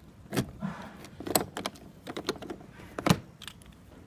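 Key turning in a safety lockout padlock and the padlock being unhooked from the isolator switch: a string of sharp metallic clicks and rattles, the loudest about three seconds in.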